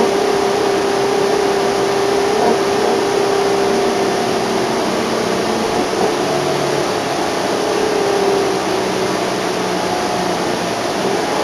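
A 2010 NABI 31-LFW natural-gas bus under way, heard from inside the cabin. Its Cummins L Gas engine and ZF transmission make a steady whine over road noise.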